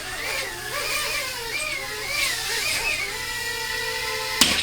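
Tiny whoop FPV drone's brushless motors whining, the pitch rising and falling about twice a second with throttle blips, then holding steady, ended by a sharp knock near the end.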